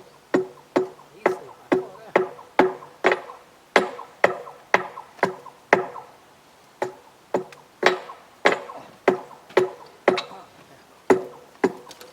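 Hammer blows on steel, about two a second, each strike ringing briefly at the same pitch: hammering on the rail at a thermite weld.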